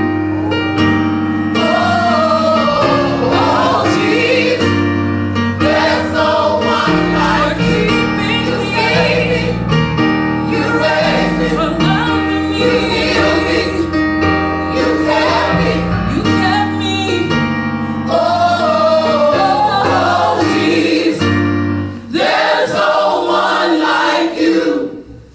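Gospel group singing in harmony with a band of bass and keyboard, the song coming to its close near the end.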